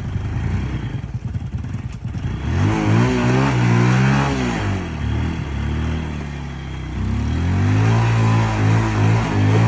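Motorcycle engine revving as it rides, the pitch rising and falling with the throttle: low and uneven for the first two seconds, then climbing and holding, dropping about five seconds in, and climbing again near the end.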